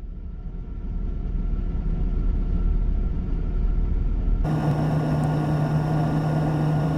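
Truck engine running steadily, heard from inside the cab. About four and a half seconds in, the sound switches abruptly to a louder steady hum with a clear low tone.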